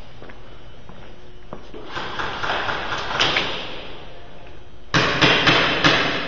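Rustling and scraping, then four sharp knocks in quick succession, about a third of a second apart.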